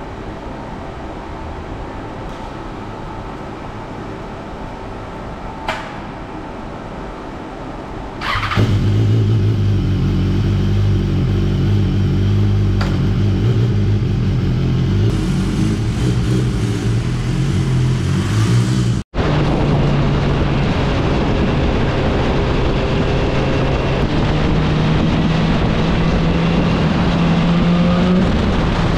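A BMW S1000R's inline-four engine starts about eight seconds in and runs at a steady idle. Later a motorcycle engine runs steadily at road speed, its pitch slowly rising.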